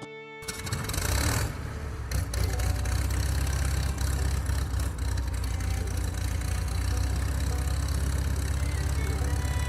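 An engine starts about half a second in and then idles steadily with a low rumble.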